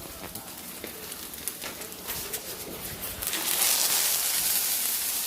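Light taps and clinks of cooking utensils, then, about three seconds in, a steady sizzle starts as Korean pancakes fry in hot oil in a pan.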